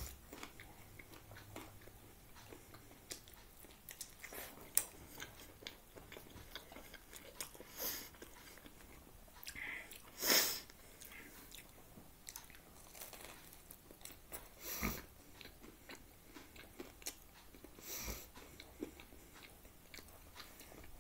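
Close-up mouth sounds of biting and chewing a slice of homemade ham-and-cheese pizza: scattered clicks and soft crunches, with a few louder noises, the loudest about ten seconds in.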